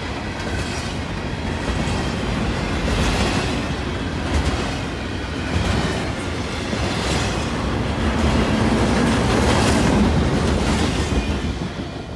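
Double-stack intermodal freight train's cars rolling past: a continuous rumble and rattle of wheels on rail, with clacks as trucks cross the rail joints. The sound fades as the tail end passes near the end.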